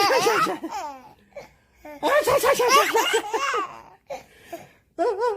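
A baby laughing in three bouts of quick, high-pitched pulses. The first is at the start, the second runs from about two seconds in to nearly four, and the third begins about five seconds in.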